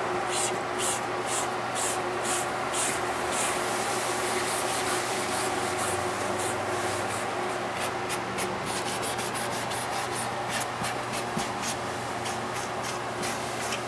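Painted wood trim being sanded by hand with a small sanding pad, in back-and-forth rubbing strokes about two a second, quicker in the second half. The edges are being distressed so the dark undercoat wears through the yellow paint for a weathered look.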